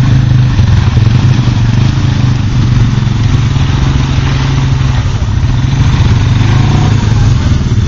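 Suzuki KingQuad ATV's single-cylinder engine running steadily at low throttle as the quad crawls through mud, with a steady low hum and no clear revving.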